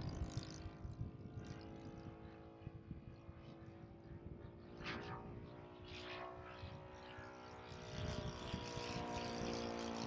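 Radio-controlled scale Junkers Ju 87 Stuka model plane's engine and propeller droning steadily in flight, growing louder near the end as it passes closer.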